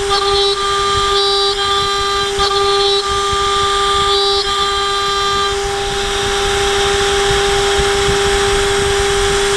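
The 10 hp HSD spindle of a CNC router whines at a steady pitch while its spiral end mill cuts 6061-T6 aluminium under oil mist, with higher cutting tones that come and go. A little past halfway the higher tones give way to a rougher hiss.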